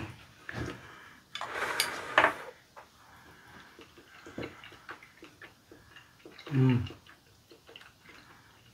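Chopsticks clicking lightly against ceramic bowls and a pan while eating, with soft chewing. A breathy rush comes about a second in, and a short low hum near the end.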